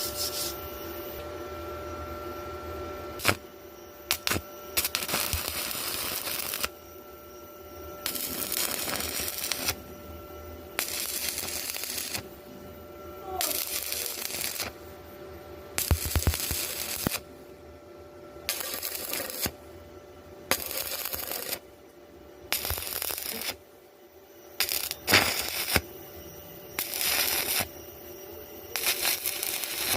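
Stick welding arc crackling and hissing in a series of short bursts, each a second or two long, that start and stop abruptly with brief pauses between them.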